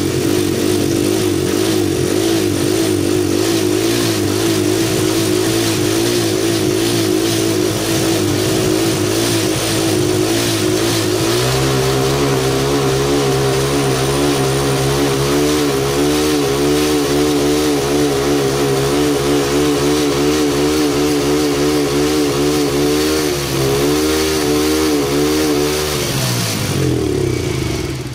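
Honda Win motorcycle's small single-cylinder engine running, having started again after its flooded spark plug was dried. About eleven seconds in the revs step up and hold a faster, slightly wavering speed, then the engine winds down near the end.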